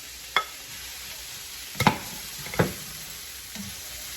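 Chopped vegetables sizzling as they are stir-fried in coconut oil in a pan. A spatula knocks against the pan three times, the two loudest a little before and after two seconds in.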